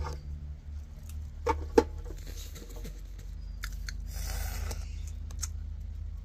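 A boy eating huiscoyol palm fruits: small mouth clicks and sucking, with two sharp clicks about a second and a half in and short hissy slurps, over a steady low rumble.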